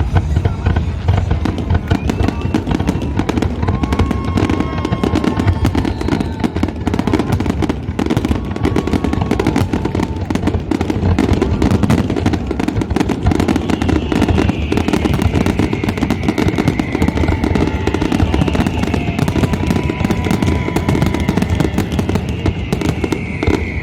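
Fireworks bursting in a dense, continuous barrage of bangs and crackles. High whistling tones slide down in pitch through the second half.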